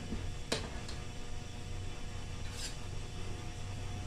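Steady low hum, with a light knock of dishware about half a second in and a short scrape around the middle, as bowls of vegetables are handled on a kitchen counter.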